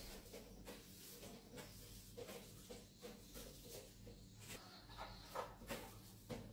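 Faint sweeping of a broom's bristles across a tiled floor: a run of short, irregular scratchy strokes, a few louder ones near the end.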